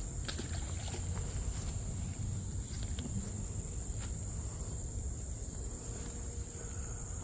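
Steady high-pitched chorus of crickets by the creek, over a low rumble on the microphone and a few faint clicks.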